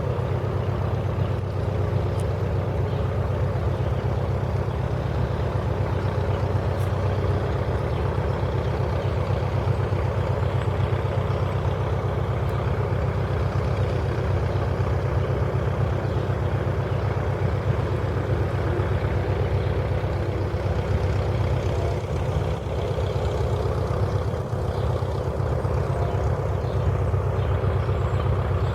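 Steady, low engine drone with a rapid, even pulse.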